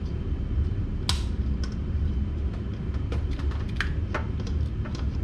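Scattered light clicks and snaps of spark plug wire boots and a distributor cap being handled and pushed on, over a steady low rumble. The sharpest click comes about a second in, with a cluster of quicker ones a couple of seconds later.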